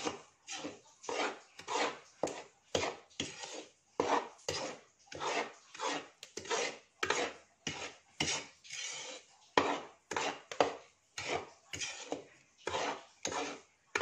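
A spatula scraping and stirring toasting flour in a metal pan in quick, regular strokes, about two a second. This is the constant stirring that keeps the polvoron flour from scorching.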